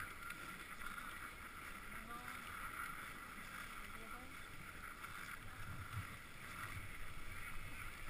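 Dog sled gliding over packed snow: a steady hiss of the runners with a low rumble from the sled's motion.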